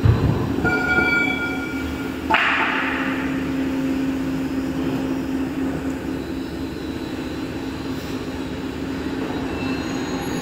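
Electric overhead crane with a lifting-magnet spreader beam working over steel sections: a steady electric hum throughout, a low thump at the start, a brief high-pitched squeal about a second in, and a short rush of hiss a little after two seconds.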